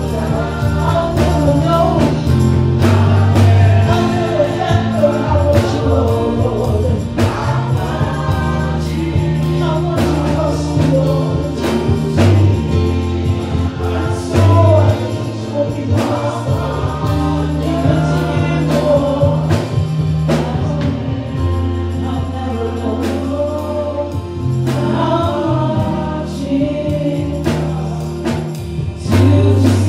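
A choir singing a contemporary gospel worship song over a band with sustained bass notes and a steady beat.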